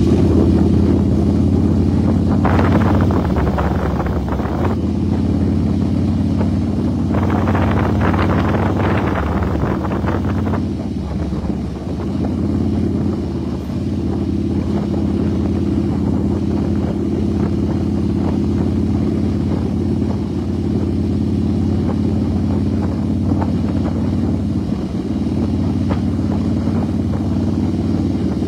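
Motorcycle engine running steadily at cruising speed. Two stretches of louder rushing noise come in, about two and a half seconds in and again about seven seconds in.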